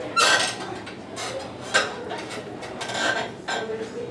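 Paper rustling and pencils rubbing and scraping on desks as students write, in short uneven bursts, the loudest just after the start.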